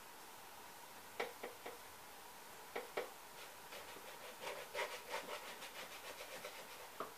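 A few light taps on wood, then a quick run of short rubbing strokes, about four or five a second, and one more tap near the end: wooden craft sticks being handled and worked at a craft table.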